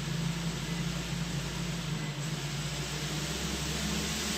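Hubsan H501S quadcopter's four brushless motors and propellers spinning up on a bench test: a steady hum with an even airy hiss from the props.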